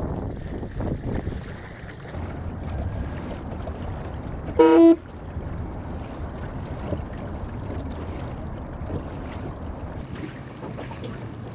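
A single short horn toot about halfway through, one steady note lasting about half a second, over the steady wash of water and wind as a small electric micro-boat moves through the water.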